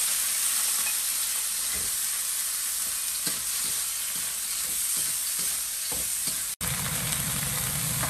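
Small clams (hai gua zi) sizzling with a steady hiss in hot oil in a wok, stirred with a metal spatula with a few faint scrapes. Near the end the sound breaks off for an instant and resumes with a low hum beneath the sizzle.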